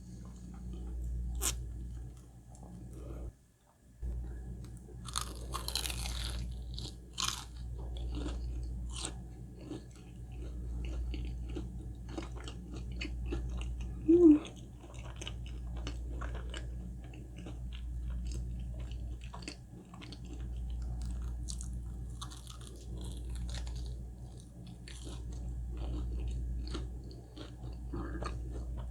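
Close-miked eating sounds: repeated bites and chewing with crunching and small wet mouth clicks, spread through the stretch, with one louder brief mouth sound about halfway. A steady low hum sits underneath.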